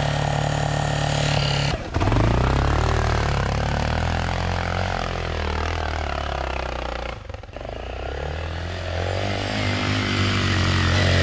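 Enduro dirt bike engine heard from on board while riding, its revs rising and falling with the throttle. It breaks off briefly near two seconds, and about seven seconds in the revs drop sharply for a moment before building again.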